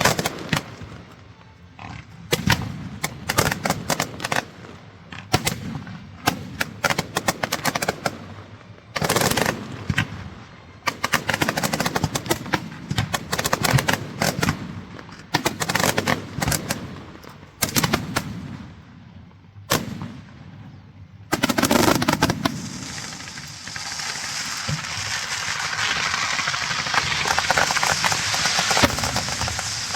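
Strings of firecrackers going off in rapid, irregular volleys of sharp bangs with short pauses between them. About two-thirds of the way through the bangs give way to a dense, steady hiss that grows louder.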